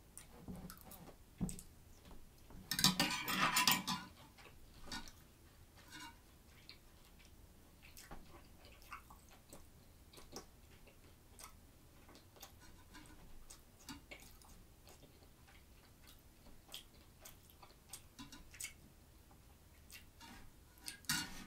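Quiet eating at a table: scattered light clicks and taps of a metal fork against a plate, with a louder burst of noise about three seconds in.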